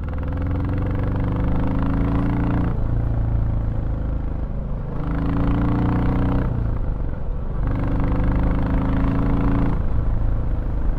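Royal Enfield Classic 350's single-cylinder engine and exhaust under acceleration, heard from the rider's seat, fitted with a DNA Stage 2 performance air filter that gives it a slightly bassier tone. The engine note climbs in pitch three times, breaking off between each pull.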